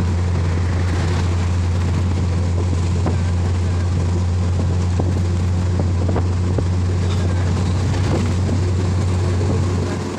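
Engine and road noise heard from inside a moving bus: a loud, steady, low drone with a rushing hiss and a few light rattles. It drops off somewhat just before the end.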